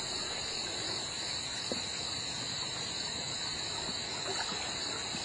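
Steady, unbroken high-pitched insect chorus, with a faint even hiss beneath it.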